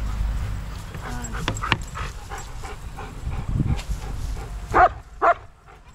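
Dog giving two short, loud yips about half a second apart near the end, after a few light knocks about a second and a half in.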